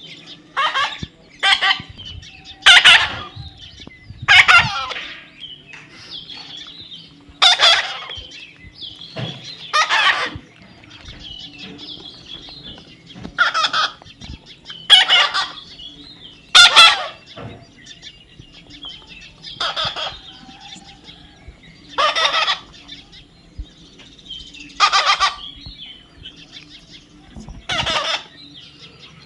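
A young parrot squawking over and over: about a dozen loud, short calls, one to three seconds apart.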